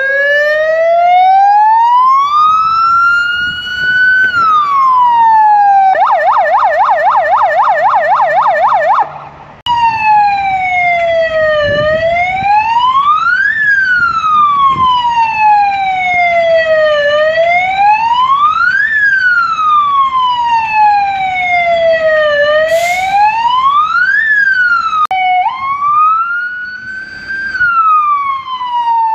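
Electronic sirens on fire-service vehicles, one after another. First the Renault Trafic's siren wails up and falls, then switches to a fast warble. After a short break the Mercedes-Benz 1120 truck's siren wails slowly up and down about every five and a half seconds, and near the end the Citroen Berlingo's siren rises and falls once.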